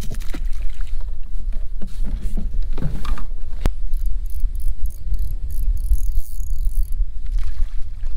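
A spinning fishing reel being cranked for about three seconds, a high whirring that pulses about three times a second with each turn of the handle, after a sharp click about three and a half seconds in. A steady low rumble of wind on the microphone runs under it.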